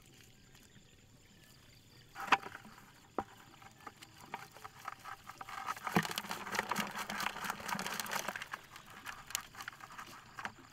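Small fish flapping and splashing in a plastic bucket as they are shaken out of a fine-mesh net trap, a dense patter of little slaps and mesh rustling. A sharp knock about two seconds in, before the patter builds.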